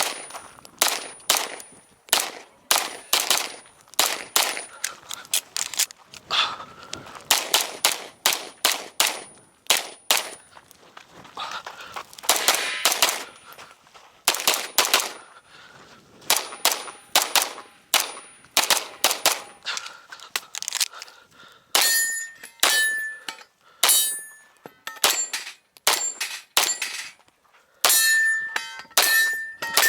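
Limcat Phantera 9mm Major Open-division pistol firing repeatedly, mostly in quick pairs with short pauses between strings. From about two-thirds of the way in, many of the shots are followed by short metallic rings.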